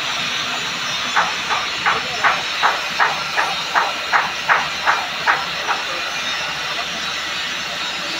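Oxy-fuel cutting torch on a pipe cutting machine, hissing steadily as its jet cuts through a steel pipe wall. From about a second in until near six seconds there is a run of about a dozen short, sharp, evenly spaced sounds, nearly three a second.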